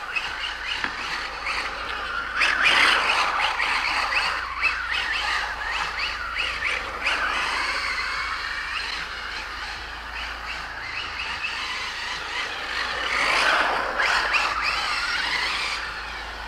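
Brushless electric motor of a 1/8 scale RC drift car whining as the car is driven, rising and falling with the throttle, over a hiss of tyres on wet asphalt. It swells about three seconds in and again near the end.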